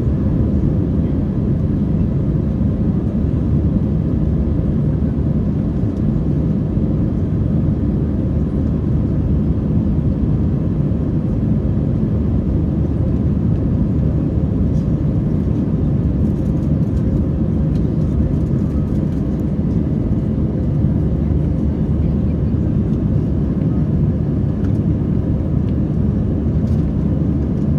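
Steady low drone of an Airbus A321 in cruise flight, engine and airflow noise as heard inside the cabin.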